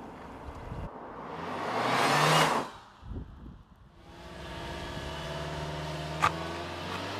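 Nissan Juke Nismo driving past at speed: a whoosh that swells and cuts off abruptly about two and a half seconds in. Then the steady drone of a car cruising along, with a single click near the end.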